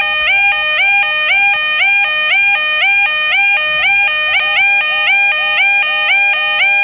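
Level crossing warning alarm sounding continuously: two ringing tones, a lower and a higher note, alternate in an even, fast repeating pattern, each note starting with a quick upward slide.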